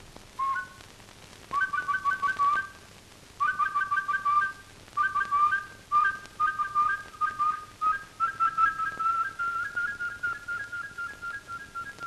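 A man whistling an imitation of a curlew's call: a short note, then groups of quick pulsed whistled notes that run into a long rapid trill, creeping slightly up in pitch and fading toward the end.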